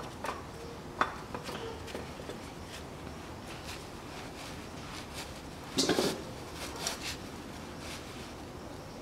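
A new spin-on oil filter being screwed on by hand under the car: faint handling noise with a few light clicks and knocks, the loudest cluster about six seconds in, over a steady low background hum.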